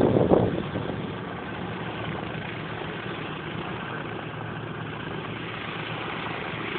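A Douglas Dakota's twin radial piston engines running at low power as it taxis, a steady distant drone. Wind buffets the microphone in the first second.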